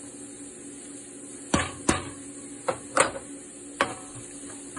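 Utensils knocking sharply against a nonstick frying pan, five quick knocks spread over the second half, as chopped bell pepper is tipped in and pushed around with a wooden spatula.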